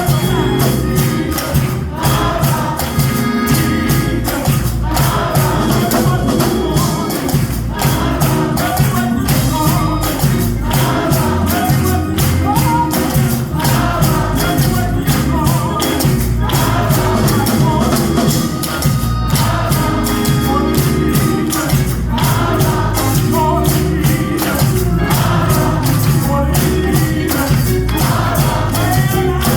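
Gospel music: voices singing over a steady beat of drums and tambourine.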